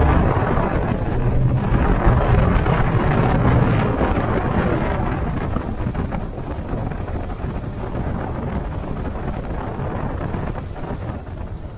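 Flats boat's outboard motor running under way, with wind buffeting the microphone; the roar grows quieter through the second half.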